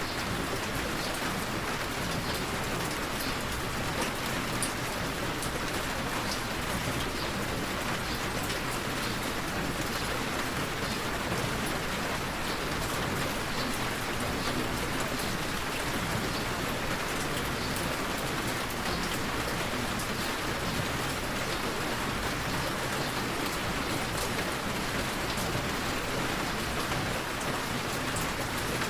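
Steady rain falling: an even hiss with scattered fine drop ticks.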